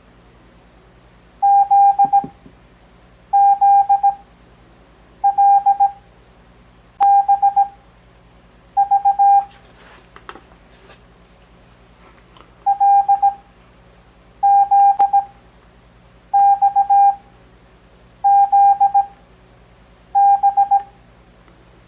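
Morse code practice tone of about 800 Hz, keyed into single characters of short dits and dahs sent Farnsworth-style (17 wpm characters at 6 wpm overall): ten characters about two seconds apart, with a longer pause near the middle. A faint steady hum lies underneath.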